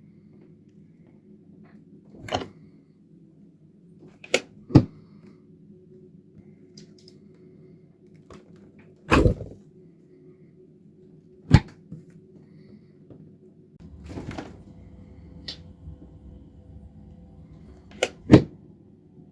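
Refrigerator and freezer doors being opened and shut: a series of sharp thuds and clicks, several coming in quick pairs, with a longer rustling stretch about two-thirds of the way through. A steady low hum runs underneath.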